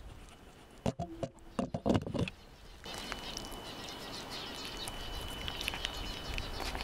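Cats chewing and picking at boiled carp right next to the microphone. A cluster of sharp chewing clicks and knocks against the plate comes a second or two in, then softer eating noises over a steady hiss.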